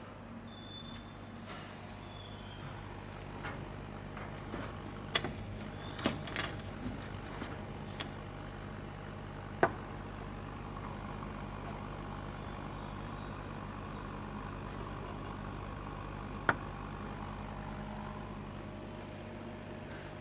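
KAMACH 6090 ULTRA CO2 laser machine running with a steady hum, broken by a few sharp clicks and knocks, most of them between about five and ten seconds in and one more near the end.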